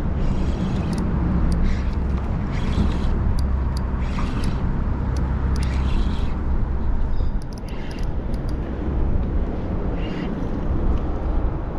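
Steady low engine rumble of a passing boat, with short patches of hissing noise coming and going over it.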